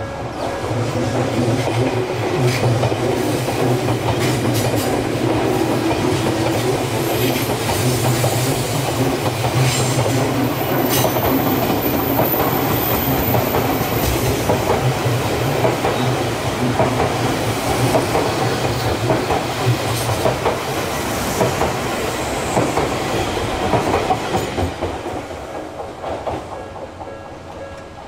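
Odakyu Romancecar electric express train passing close by on curved track: a loud rumble of wheels and running gear with clickety-clack over the rail joints. It builds within the first second and fades over the last few seconds as the train goes by.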